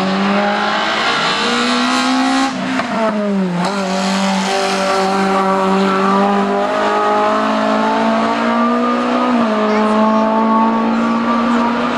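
Renault Clio RS III hill-climb race car's 2.0-litre four-cylinder engine running hard at high revs and climbing in pitch under acceleration. About two and a half seconds in the revs drop for about a second, with a few sharp cracks, before rising again, and there is a brief gear change near the end.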